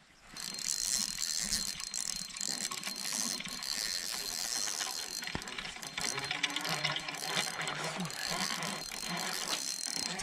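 Fishing reel being cranked, its gears making a fast, dense clicking whir that starts just after the beginning and keeps going steadily.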